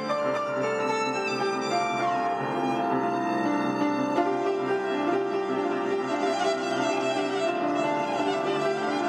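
Violin and upright piano duet played live: a bowed violin melody of held notes over piano accompaniment.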